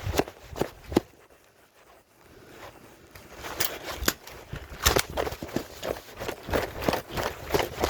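Footsteps: a few steps, a pause of about two seconds, then quick steady steps about twice a second.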